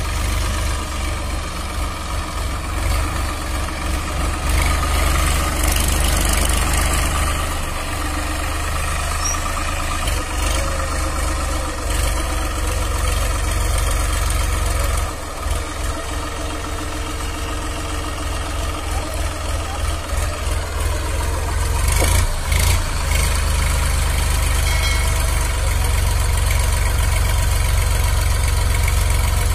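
Massey Ferguson 9000 tractor's three-cylinder diesel engine running steadily while its hydraulics tip the loaded trolley. A single sharp knock about two-thirds of the way through.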